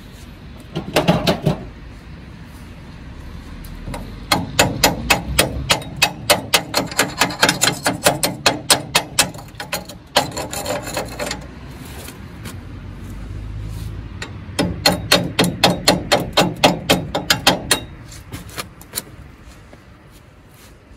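Chipping hammer striking a fresh stick weld on the steel table frame to knock off the slag: two long runs of quick, sharp taps, about five a second, with short rougher bursts in between.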